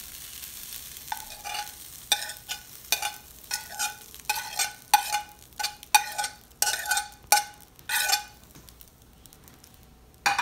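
Metal spoon scraping vegetable rice off a china plate onto a hot sizzler plate. A quick run of scrapes, each with a short ringing clink, stops about eight seconds in, and a single clink follows near the end. A faint hiss from the hot plate sits under the first seconds.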